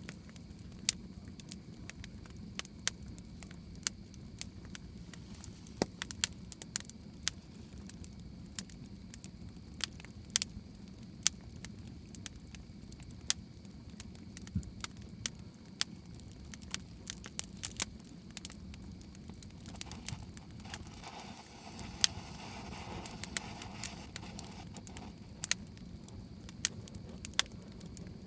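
Campfire wood crackling, with sharp irregular pops, several a second at times, over a steady low hum. A soft rushing noise swells for a few seconds past the middle.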